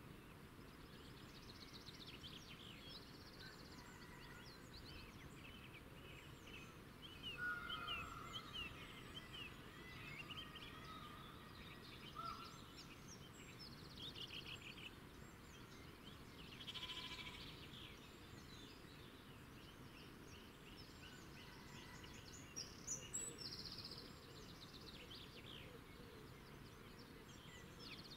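Faint chirps and short rapid trills of small birds over a low outdoor hiss, with louder bursts about 7 to 9 seconds in and again around 23 seconds.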